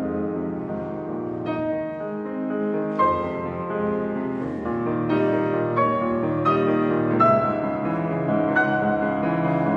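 Yamaha grand piano played solo: low notes ringing under a line of struck treble notes, which come about once every second or less from about three seconds in and climb in pitch.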